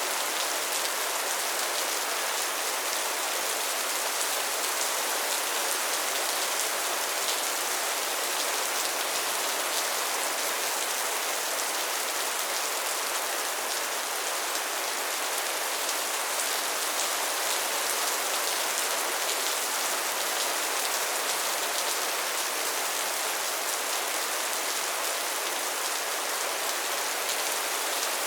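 Steady rain falling: an even, unchanging hiss with a fine patter of individual drops and very little low rumble.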